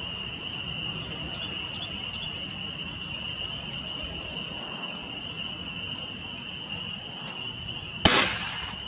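An FX Crown .22 PCP air rifle fires a single shot about eight seconds in, a sharp crack with a short tail. Under it, a steady high insect drone and low wind noise on the microphone.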